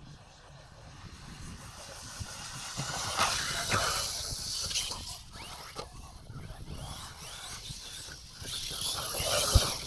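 Electric RC cars running on sand, their motors whining up and down with the throttle while the wheels hiss through loose sand. Several knocks of landings from jumps, the sharpest one near the end.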